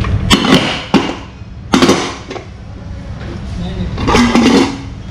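Several sharp knocks with rubbing and scuffing as a scooter tyre is worked off its hub motor by hand, over a steady low hum.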